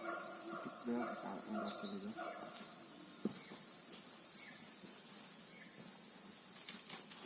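Steady, high-pitched drone of forest insects, with faint voices in the first two seconds and a single click a little over three seconds in.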